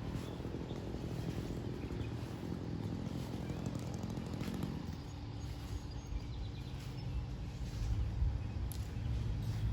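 An engine running steadily at low speed, with a low hum that grows a little near the end, and a few faint clicks over it.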